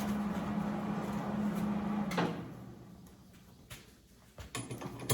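A steady machine hum that shuts off with a click about two seconds in and dies away, followed by a few faint knocks and clicks.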